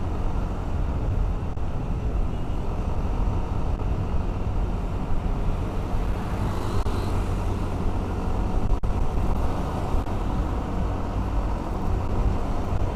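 Steady riding noise from a moving motorcycle: wind rushing over the camera microphone mixed with the engine's low drone and the hum of surrounding road traffic.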